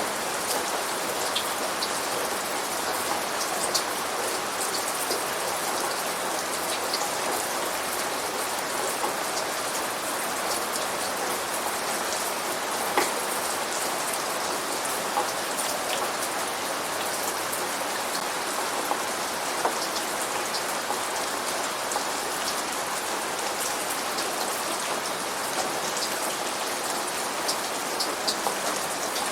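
Steady rain falling, an even hiss with scattered sharper drops ticking on a surface.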